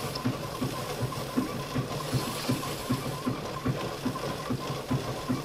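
Pianola rewinding its paper music roll: a steady mechanical whirring with a regular low pulse about two to three times a second.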